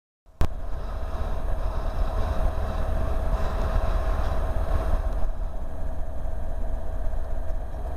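A locomotive-hauled train approaching through a station: a steady rumble with a held mid-pitched tone, cutting in suddenly just after the start.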